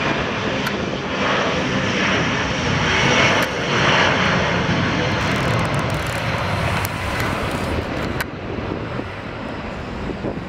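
Airliner jet engines passing close by, loudest about three to four seconds in, then fading.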